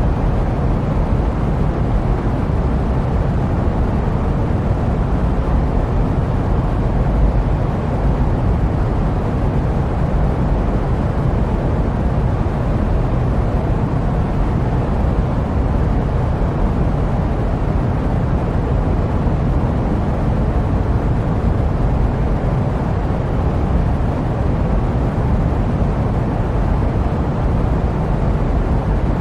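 Jet airplane noise: a steady, even, low rumble of engine and air noise without any change.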